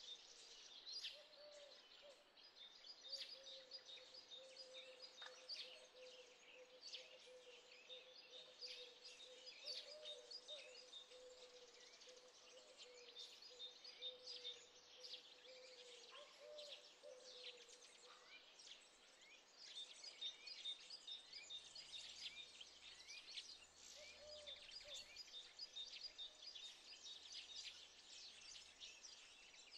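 Faint birdsong: many small birds chirping and trilling, quiet and continuous. A faint steady low tone runs underneath for about the first half, then stops.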